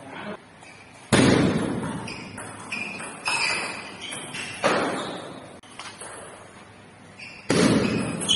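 Table tennis rally: sharp knocks of the celluloid ball off the rubber bats and the table, echoing in a large hall, with the loudest hits about a second in and about seven and a half seconds in.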